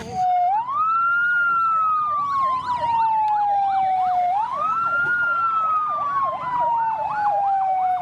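Fire engine sirens sounding together: one slow wail that rises quickly and falls away gradually, twice, with a second siren's fast yelping warble of about three cycles a second over it.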